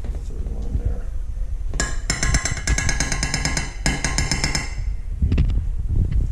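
A short stretch of music with a drum beat, starting about two seconds in and cutting off sharply about three seconds later.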